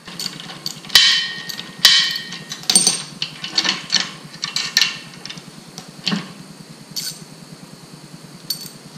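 Steel parts of a B&W Companion fifth-wheel hitch clanking and clinking as the release handle, its pin and chain are fitted into the hitch head. Sharp metal knocks come about once a second, some ringing briefly, the loudest in the first three seconds.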